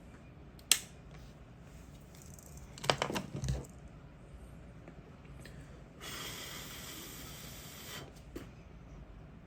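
Handling noises: a sharp click, then a short cluster of knocks about three seconds in, and a steady hiss for about two seconds past the middle, with a few faint ticks after it.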